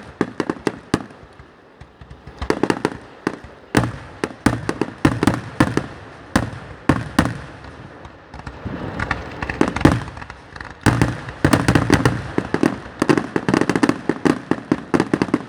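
Fireworks grand finale: rapid volleys of booming shell bursts and crackling reports, coming in dense clusters with brief lulls between them.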